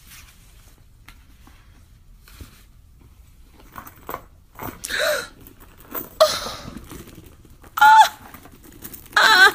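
A young woman's excited high-pitched squeals and shrieks in several short bursts, the loudest and most warbling near the end, with faint paper rustling before them.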